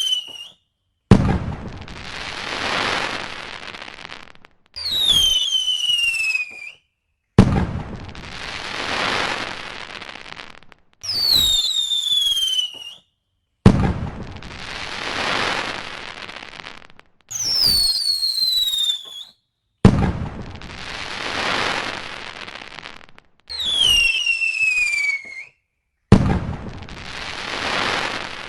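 Fireworks going off in a regular repeating cycle: a whistle falling in pitch for about two seconds, a short silence, then a sharp bang followed by about three seconds of hissing crackle that swells and fades. There are five bangs, about six seconds apart.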